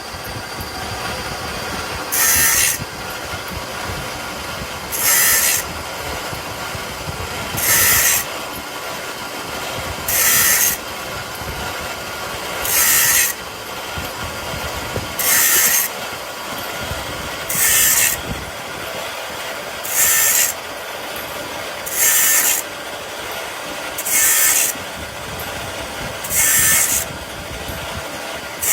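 Production machinery running steadily, with a short rasping hiss of metalworking about every two to three seconds as the machine cycles.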